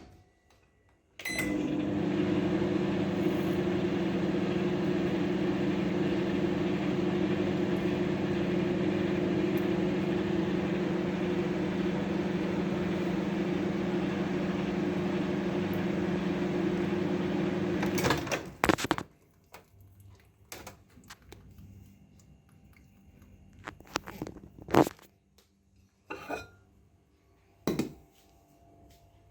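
Microwave oven running with a steady hum, starting with a click about a second in and stopping abruptly after about 17 seconds. A few sharp clicks and knocks follow.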